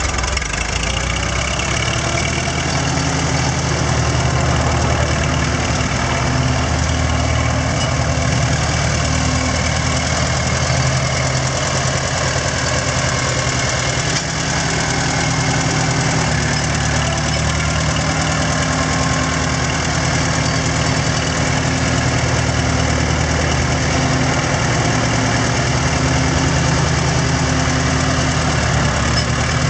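Farmall H tractor's four-cylinder gasoline engine running at an even speed while the tractor drives along, with a steady low firing note.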